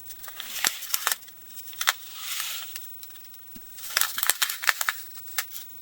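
Small plastic bags of pearl beads being handled: scattered crinkles and light clicks, with a short rustle about two seconds in.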